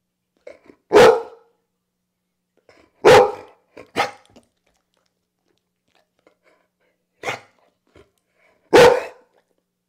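A pit bull-type dog barking for a treat held up out of its reach: five single barks with pauses between them, the first about a second in, two close together a few seconds in, a softer one, and a last loud one near the end.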